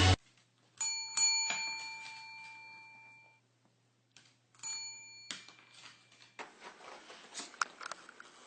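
Doorbell chime: two quick ringing strikes that fade out over about two seconds, then a second ring about four seconds later that is cut short. Faint room noise with light clicks follows.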